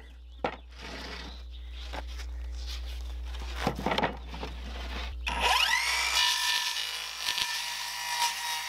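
A few knocks as the siding panel and saw are handled. About five seconds in, a Bauer cordless circular saw spins up with a rising whine and runs steadily as it cuts into T1-11 plywood siding.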